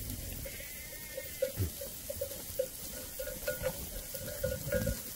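Flowing water running and gurgling steadily, with a few faint clicks.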